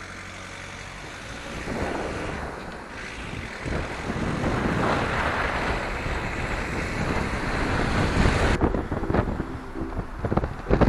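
Wind blowing over the microphone of a camera mounted on the outside of a moving car, mixed with the car's engine and tyre noise. A low steady engine sound at first gives way to louder wind noise that builds as the car picks up speed.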